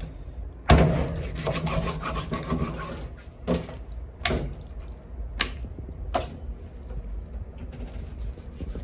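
A large knife cutting up a skinned rabbit on a wooden chopping block: rasping, sawing cuts through meat and bone, broken by about five sharp chopping knocks.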